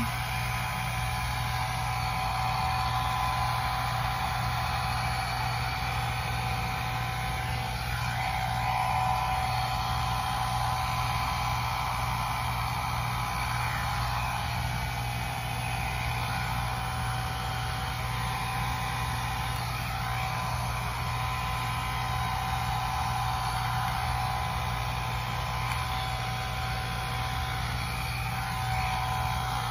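InfinitiPro by Conair hot air brush (blow dryer brush) running steadily on its low setting: an even fan rush with a faint steady whine, kind of loud but a little quieter than a regular blow dryer.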